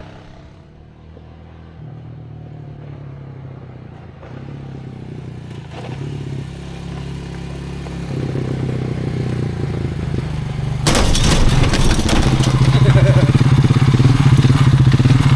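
ATV engine running and pulling harder, getting louder in steps. About eleven seconds in, a loud rushing noise suddenly joins it and stays.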